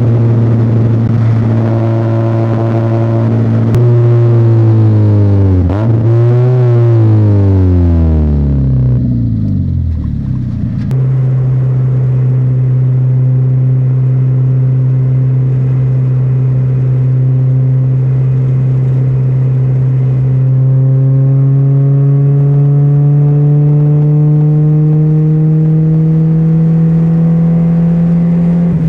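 The 1.6-litre four-cylinder engine of an NA Mazda Miata pulling the car along. Its revs climb, dip sharply about six seconds in and climb again, then fall away until about ten seconds in. After that the revs hold steady, then rise slowly and evenly over the last several seconds.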